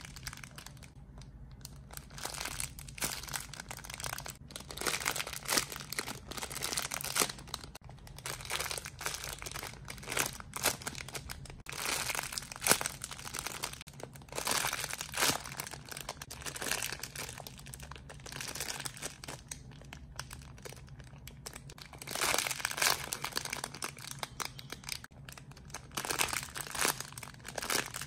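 Plastic crinkling in irregular bursts as squishy toys in their plastic wrapping are handled.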